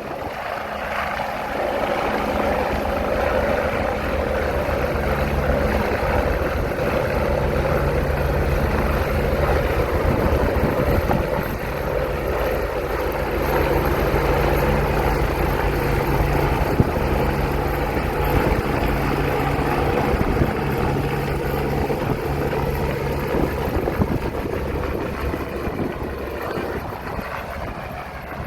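Helicopter hovering close by during a winch transfer, its rotor and engine running steadily. It dips briefly about twelve seconds in and eases off near the end.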